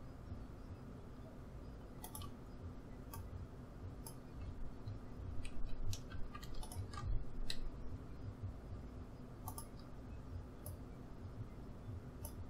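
Scattered, irregular clicks of a computer keyboard and mouse being used, over a faint low steady hum.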